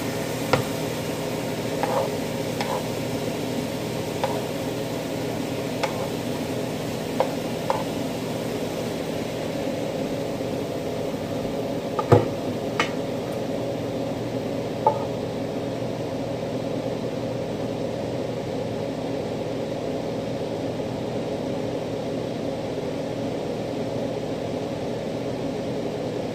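Kitchen range hood exhaust fan running with a steady hum. Scattered knocks and clinks of cookware and a utensil sound through the first half, the loudest about halfway, then only the fan is left.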